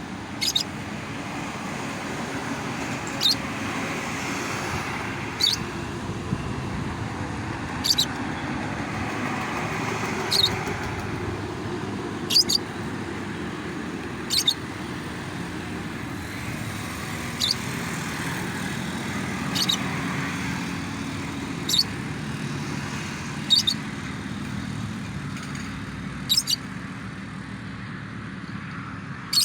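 Pastel-green lovebird giving short, sharp, high chirps about every two seconds, over steady road-traffic noise.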